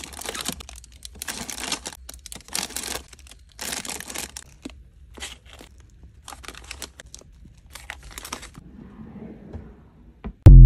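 Plastic snack packets crinkling and rustling in irregular bursts as they are dropped and packed into a drawer's organizer bins, fading to softer handling near the end. A loud low thump comes at the very end.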